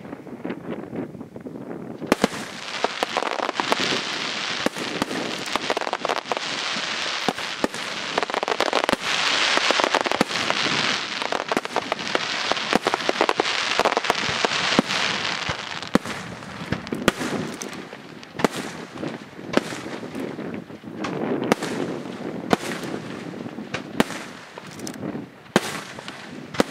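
Aerial firework shells bursting: about two seconds in, a dense rattle of small pops and sharp bangs sets in, and in the second half it thins to separate loud reports.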